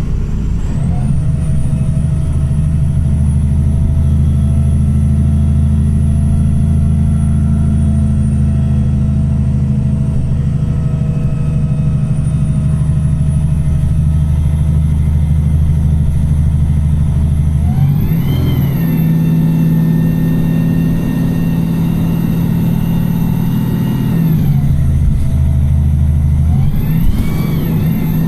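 Wright Pulsar single-deck bus engine and drivetrain heard from inside the bus, with a steady drone and a whine that slowly rises and falls. About 18 seconds in the pitch jumps up sharply and holds for several seconds, drops back, then climbs again near the end.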